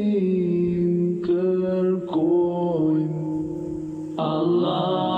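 Devotional nasheed singing: a voice holds long, gently sliding notes over a low sustained drone, and a fuller, brighter voice comes in about four seconds in.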